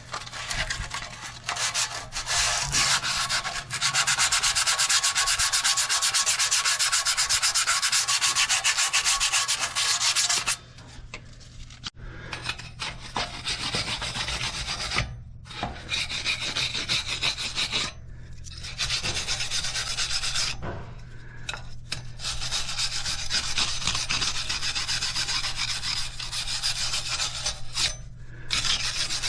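Abrasive scraping on metal brake parts, as in sanding or wire-brushing, with fast repeated strokes. It runs unbroken for about the first ten seconds, then continues in shorter bouts separated by brief pauses.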